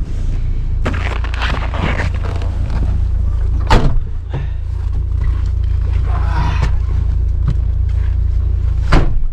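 UAZ Patriot's steady low rumble, with two loud thumps, about four seconds in and again near the end.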